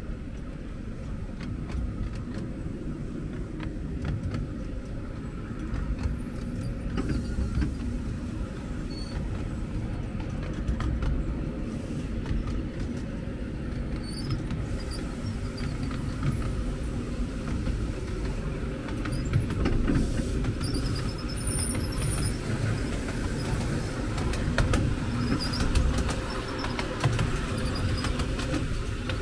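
Steady low rumble of a miniature railway train running along the track, with scattered light clicks.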